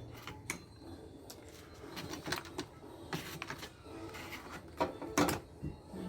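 Scattered clicks and knocks of hand tools and metal parts being handled while a hot water dispenser is taken apart, with a few louder knocks past the middle.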